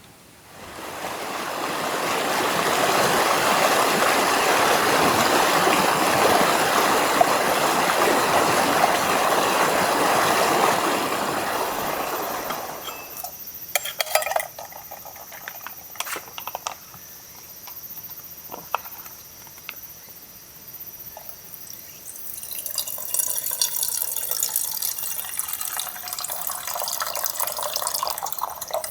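Water pouring or running in a steady stream for about ten seconds. It stops, and a few light clicks and knocks follow. A second, quieter pour or trickle starts a few seconds before the end.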